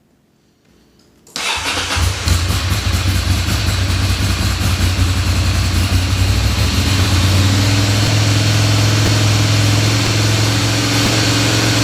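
Ducati Monster's V-twin engine firing up about a second in and settling into a steady idle, now starting after the fuel pump, pressure regulator and fuel filter were replaced to cure its crank-but-no-start fault.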